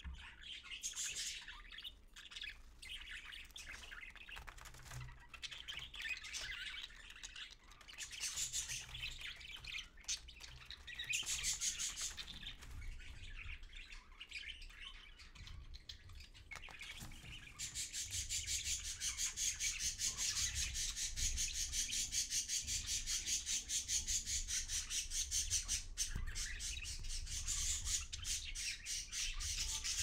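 Budgerigar chirping and chattering, scattered at first, then from a little past halfway a fast, even run of chirps that keeps going.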